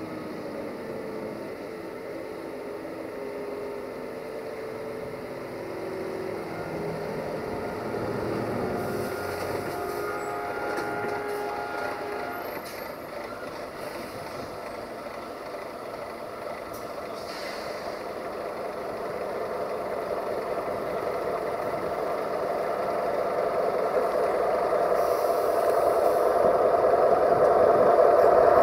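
MÁV V43 electric locomotive hauling passenger coaches as it approaches, its running and wheel-on-rail noise growing steadily louder, with a few steady tones in the first half.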